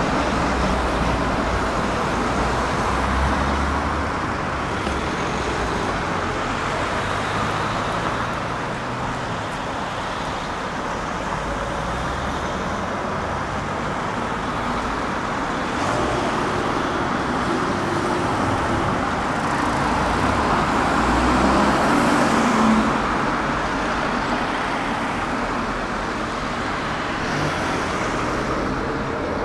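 City street traffic: cars passing, a steady hum of road noise.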